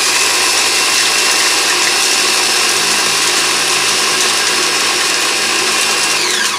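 Mini electric food processor running at full speed, its motor whining steadily as the blade pulverizes pork rinds into crumbs. Near the end it is switched off and the whine falls as the motor spins down.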